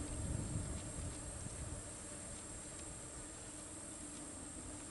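Faint, steady drone of insects with a constant high-pitched hum.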